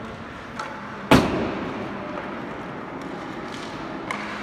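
A single loud crack of a hockey puck being struck, about a second in, echoing around a large indoor arena, with lighter puck-and-stick clicks before and near the end.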